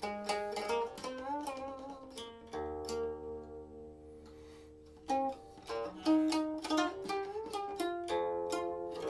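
Silk-string guqin being plucked: notes that slide and waver in pitch under the left hand, then a note left ringing for about two and a half seconds, followed by a quicker run of plucked notes.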